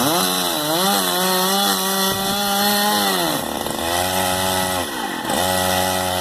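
Two-stroke chainsaw running under the throttle while cutting a tree: it revs up in the first second and holds high, drops about three seconds in, then revs back up twice in shorter steady stretches.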